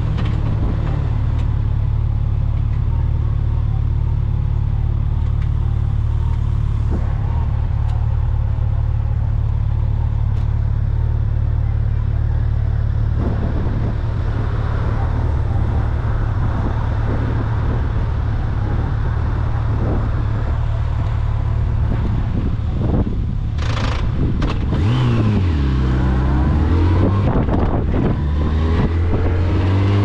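A vehicle's engine running steadily while under way, with wind and road noise over it. Near the end the engine note falls and then climbs again.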